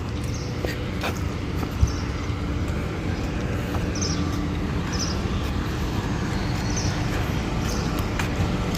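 Steady low vehicle running noise, with short high chirps every second or two.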